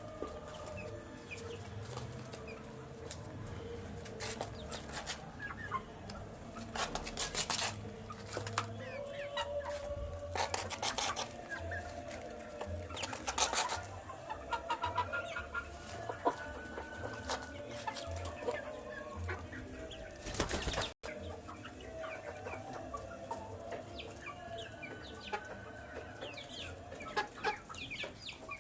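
Young chickens peeping and clucking as they feed, many short calls overlapping, with several loud sharp clattering knocks now and then.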